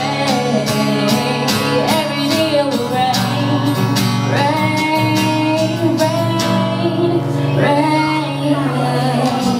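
A woman singing a ballad into a microphone, accompanied by a strummed acoustic guitar.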